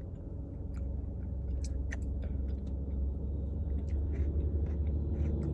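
Chewing, with scattered small clicks of a spoon in a cup, over a steady low rumble.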